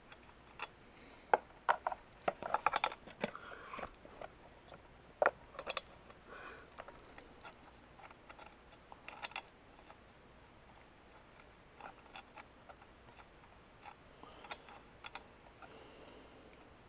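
Scattered small clicks, taps and knocks of hands and tools working on a Homelite XL chainsaw while a replacement part is fitted. The strokes are most frequent in the first few seconds and come more sparsely later.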